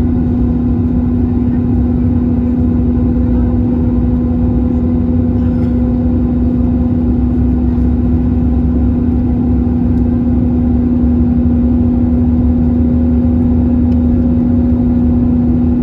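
Airbus A321 in flight, heard from inside the cabin: the steady drone of its engines and the air rushing past, with a constant low hum running through it.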